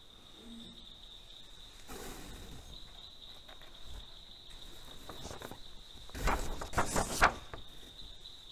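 Crickets trilling steadily in the background. About six seconds in comes a short cluster of rustles and knocks from things being handled, the loudest sounds here, after a softer rustle about two seconds in.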